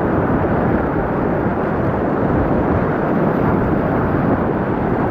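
Steady, loud roar of a river rapid's whitewater, rushing without a break.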